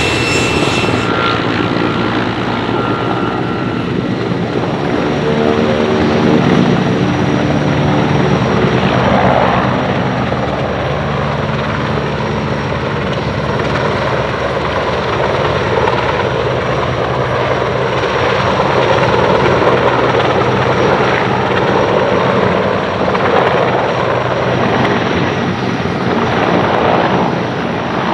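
Sikorsky S-64E Skycrane heavy-lift helicopter running on the ground, its twin turbine engines and large rotors making a loud, steady sound. A few high whining tones drop out about a second in.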